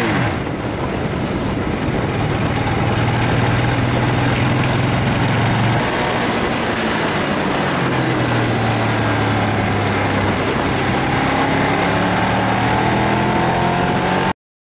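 Ducati Diavel's L-twin engine running at road speed, with wind rushing over the microphone. The engine note shifts about six seconds in and then climbs steadily as the bike speeds up, before cutting off abruptly near the end.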